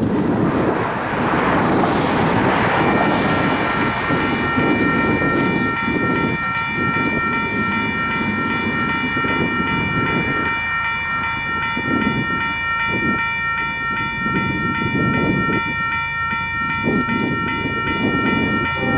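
Railroad grade-crossing bell starting to ring about three seconds in as the crossing signals activate, then ringing steadily on: the warning that a train is approaching. Underneath, gusty wind rumbles on the microphone, with a rushing swell in the first few seconds.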